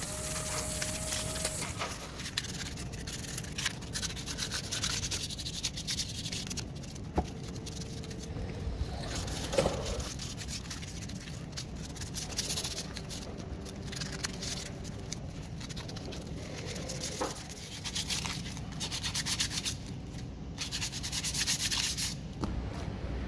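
Sandpaper rubbed by hand over a painted aluminium skateboard truck hanger, in stretches of quick scratchy back-and-forth strokes that are loudest near the end. The sanding scuffs the old paint to prepare the truck for spray painting.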